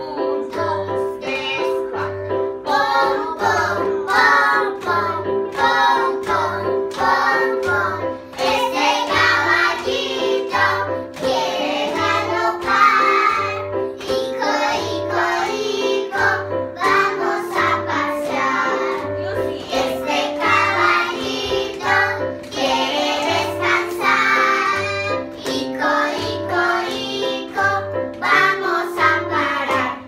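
Children singing a song with electronic keyboards playing held chords and a melody over a steady low accompaniment beat, about one and a half beats a second; the music cuts off abruptly at the end.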